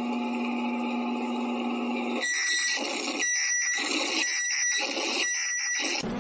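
Synthesized emergency-alert tones: a steady buzzing tone, then from about two seconds in four short beeps about a second apart, and right at the end a siren starting to rise.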